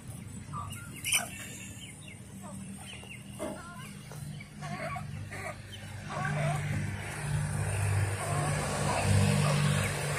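A flock of chickens clucking and giving short calls while they peck at food scraps. A steady low drone runs underneath and grows louder about six seconds in.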